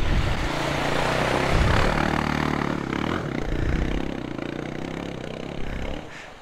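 Voge adventure motorcycle's engine running as it rides through a river ford, water splashing up around it. The sound is loudest as it passes close and fades away near the end.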